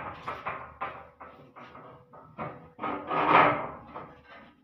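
Steel threshing basket (concave) of a Swaraj 8100 combine being slid and manhandled into place: irregular scraping and clanking of metal on metal, loudest at the start and again about three seconds in.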